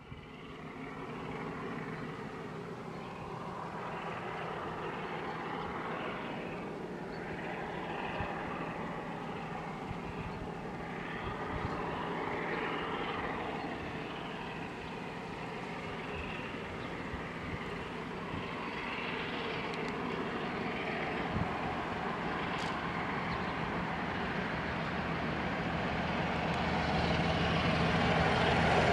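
Class 47 diesel locomotive's Sulzer twelve-cylinder engine approaching from a distance with a freight train, a steady drone that grows gradually louder toward the end.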